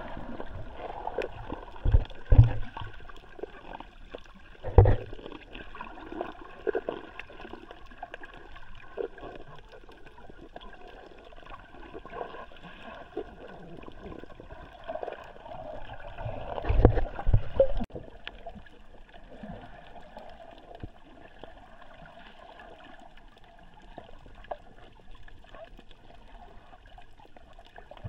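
Muffled underwater sound picked up by a camera below the surface: churning water and gurgling, with a few low thumps, the loudest about 2, 5 and 17 seconds in.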